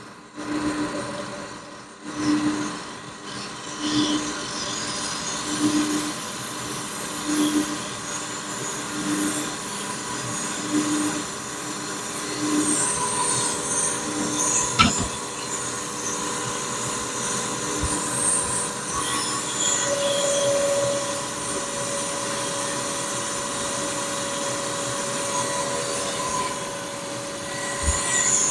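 Metalworking machine cutting into an S44 engine block, with a metallic squealing ring. The ring pulses about every second and a half for the first half, and about two-thirds in a steady higher tone sets in. There is a single sharp click about halfway through.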